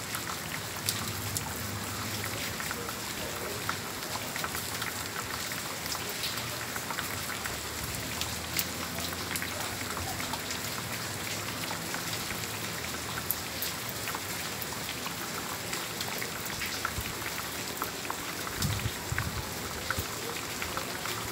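Heavy rain falling steadily on clay-tile rooftops, with a dense scatter of sharp ticks from individual drops.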